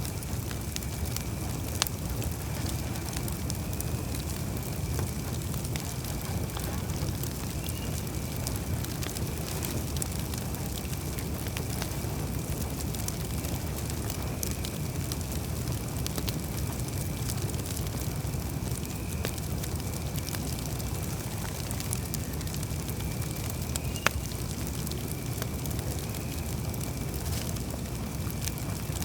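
Wood campfire crackling, with frequent small snaps and two sharper pops, one about two seconds in and one late on, over a steady low rumble of the burning fire. A faint steady high tone runs underneath.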